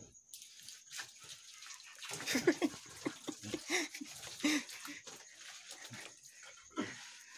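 Water poured from a mug splashing onto a stingray's body on wooden floorboards. Several short voice-like calls come between about two and five seconds in, louder than the splashing.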